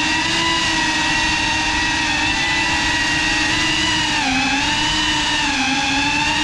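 GEPRC CineLog 35 cinewhoop's motors and ducted propellers whining steadily in flight, the pitch dipping briefly about four seconds in and again near six seconds.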